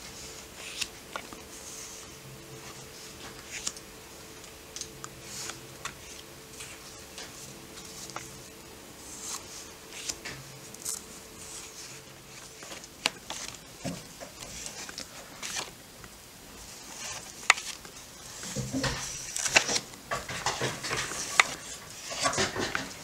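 Stiff paper postcards being handled: scattered light taps, flicks and rustles as cards are lifted and leafed through. The sound turns to denser rustling and clattering in the last five seconds as the cards are shuffled across the spread-out pile.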